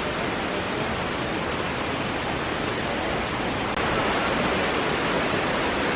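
Waterfall rushing, a steady roar of falling water that grows a little louder a little under four seconds in.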